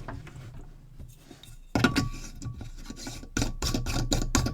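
Objects handled and moved on a workbench: quiet rubbing at first, then from about two seconds in a quick run of clicks and knocks, with a faint steady tone under them.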